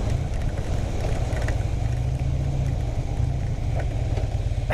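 2009 Harley-Davidson Fat Bob's V-twin engine running at a steady low speed, with a continuous hiss of wind and wet road.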